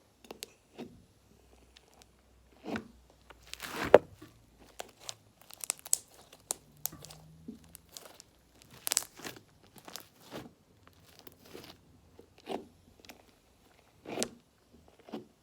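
Slime being squeezed and worked right against a microphone, giving irregular crunching, crackling and popping clicks; this slime is a crunchy one that also makes air bubbles. The loudest pop comes about four seconds in.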